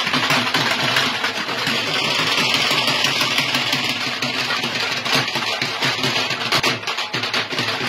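Dhol drum beaten in a fast, steady roll, with crowd noise underneath.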